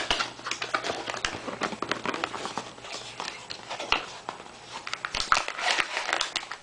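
Cardboard box being opened and plastic packaging handled: irregular rustling and crinkling with scattered small clicks and scrapes.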